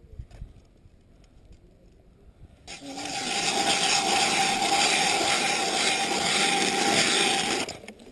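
A loud, steady whirring and scraping noise with a constant hum, coming up about three seconds in and cutting off suddenly about five seconds later.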